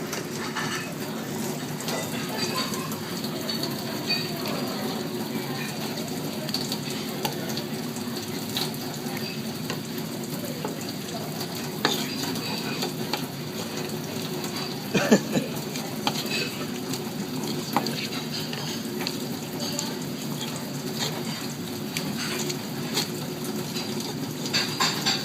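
Knife work on a triggerfish: scattered scraping, clicks and knocks of a blade on the fish and cutting board over a steady hiss, with a louder clatter about fifteen seconds in and again near the end.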